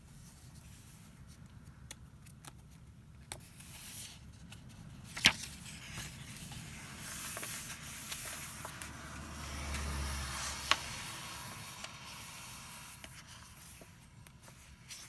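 Pages of a hardback recipe book being handled, turned and smoothed flat by hand: paper rustling and rubbing, with scattered light clicks and a sharp tap about five seconds in and another about eleven seconds in.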